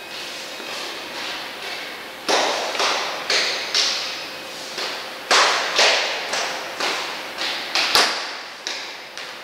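Wooden mallet knocking a foam roller pad through a towel to drive it onto the ab machine's bar during assembly. It makes a series of sharp knocks at about two a second, each fading quickly, soft at first and much louder from about two seconds in.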